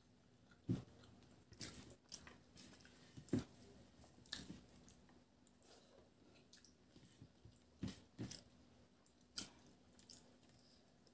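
Faint, close eating sounds of rice and mustard hilsa eaten by hand: chewing and wet mouth smacks, with a few sharper clicks scattered irregularly.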